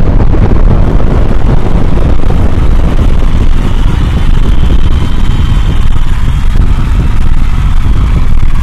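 Explosion sound effect in its long aftermath: a loud, steady, deep rumble with crackle.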